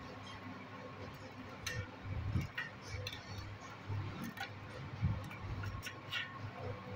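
Metal snips cutting through the copper winding wire of a monoblock pump motor's stator, giving a series of sharp, irregularly spaced clicks.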